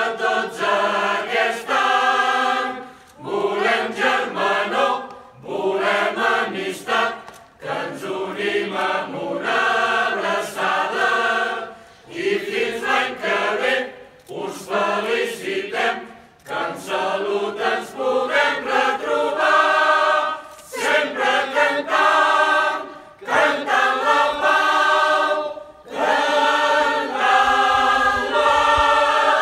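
Mixed choir of men's and women's voices singing a caramelles, a Catalan Easter folk song, in short phrases with brief pauses between them.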